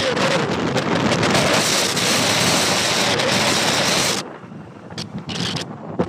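Wind rushing over a phone's microphone while riding in the open on a moving road vehicle, with the vehicle's running noise underneath. The rush drops off sharply about four seconds in, leaving a few short knocks.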